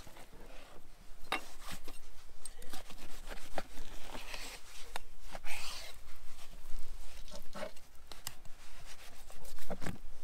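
Knife slicing raw goat meat and sinew off the bone, with scrapes and tearing as the meat is pulled away, and irregular clicks and knocks of the blade and meat on a wooden board.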